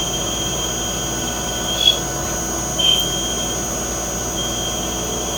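Yang CNC lathe running a turning pass on bar stock, a steady machine sound with a thin high whine that breaks off about two seconds in and comes back near the end.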